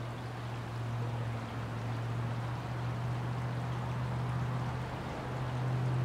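Steady low rumble of traffic on the road bridge overhead, over the rush of flowing creek water; the rumble grows a little louder near the end.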